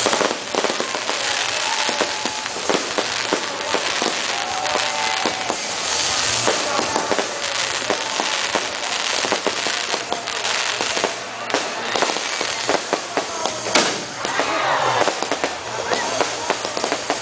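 Fireworks display going off continuously: many sharp bangs and crackles in quick succession, with the loudest burst about fourteen seconds in.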